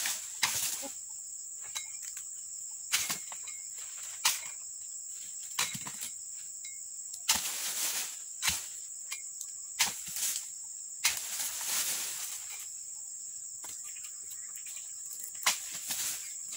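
Dodos chisel on a long pole jabbing into oil palm frond bases: sharp chopping strikes every second or so, with two longer spells of rustling as cut fronds slide and fall. A steady, high-pitched insect chorus runs underneath.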